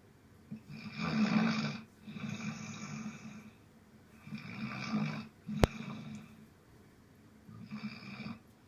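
A sleeping person snoring in three cycles of long, noisy breaths, each cycle starting about three and a half seconds after the last. A single sharp click comes just past the middle.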